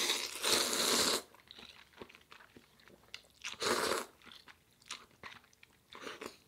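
A person slurping instant ramen noodles off chopsticks: a long slurp of about a second at the start and a shorter one a little before four seconds in, with wet chewing and mouth clicks between and after.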